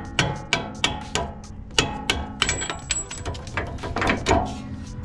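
Hammer blows on a steel punch, driving a bolt out of the lower strut mount on a truck's front lower control arm: a fast, uneven run of sharp metallic strikes, some ringing briefly.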